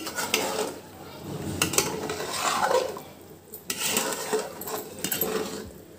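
Steel ladle scraping and clinking against a metal pot while stirring rice in hot water, in a few spells with short pauses between.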